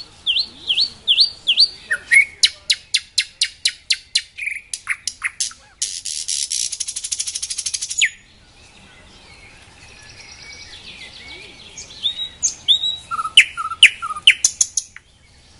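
Nightingale singing. A phrase of repeated down-slurred whistles runs into a long series of sharp, evenly spaced notes and then a fast, dry rattling trill. After a few seconds' pause a new phrase of varied whistles and clicks follows.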